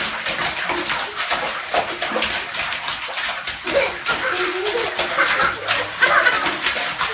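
Toddlers splashing bathwater with their hands: fast, irregular slaps and sloshes, with a few short childish squeals.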